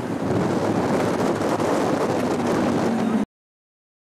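Lamborghini Aventador's V12 running in city traffic, heard as a dense rumbling haze with street noise and wind on the microphone; the sound cuts off abruptly about three seconds in.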